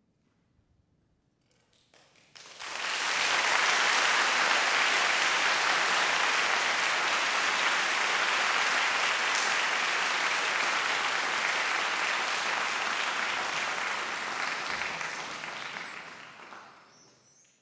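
Concert audience applauding at the end of a percussion ensemble's performance. The clapping breaks out suddenly after a couple of seconds of near silence, holds steady, and fades out near the end.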